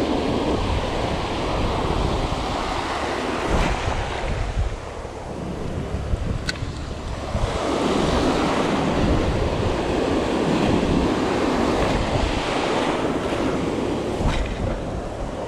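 Ocean surf breaking and washing up the beach, with wind buffeting the microphone; the wash swells louder from about halfway through as a wave runs in.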